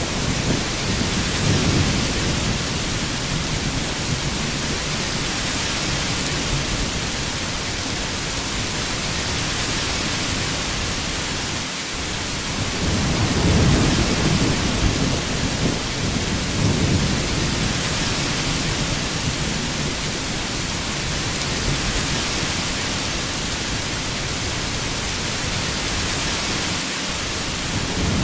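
Heavy rain falling in a steady hiss, with low rolling thunder rumbling at the start and again about halfway through.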